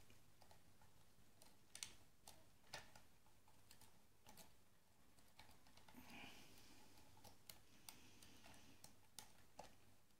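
Faint, irregular small clicks of a hook pick working the pins of a repinned ABUS pin-tumbler rim cylinder held under tension.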